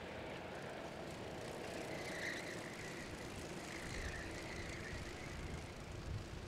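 Four-stroke Honda GX160 engines of a group of cadet karts running on track, a steady engine drone heard from a distance, with a higher whine rising briefly twice as karts pass closer.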